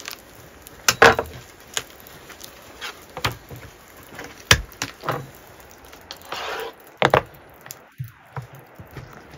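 Butchering a skinned rabbit on a wooden cutting board: scattered sharp knocks and taps of the knife and carcass against the board as it is cut and broken apart by hand, the loudest about a second in.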